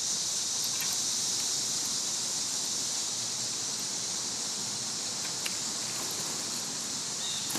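Cicadas droning in a steady, high-pitched chorus, with a few faint ticks and a short bird chirp near the end.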